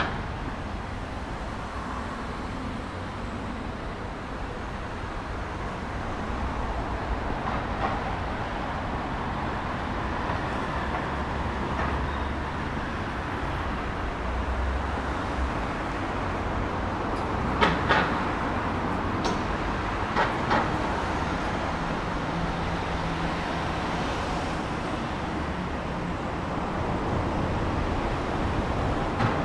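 Steady rumble of passing vehicles, with a few short sharp knocks about two-thirds of the way through.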